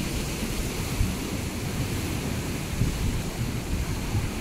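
Wind buffeting the microphone in a fluttering low rumble, over the steady wash of the sea.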